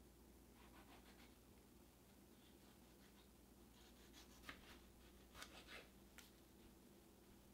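Faint kitchen knife slicing a tomato on a wooden cutting board: soft scraping strokes, with a few light taps of the blade on the board between about four and six seconds in.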